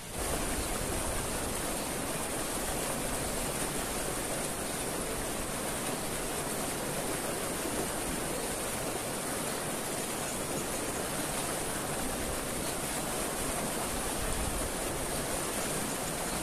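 Mountain river water rushing steadily over a small cascade between boulders into a pool.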